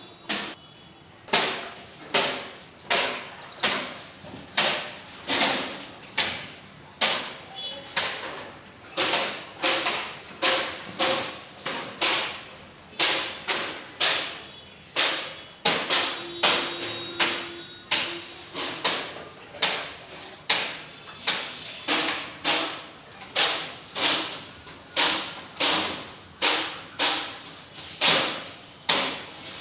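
Repeated heavy thuds, about one to two a second at a fairly even pace, each dying away quickly, heard as an ongoing nuisance noise.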